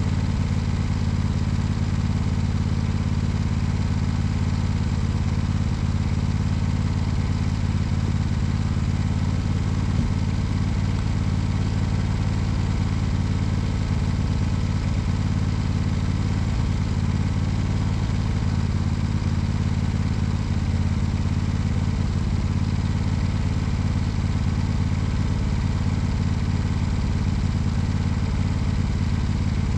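Simplicity 16 hp lawn tractor engine idling steadily at an even pitch.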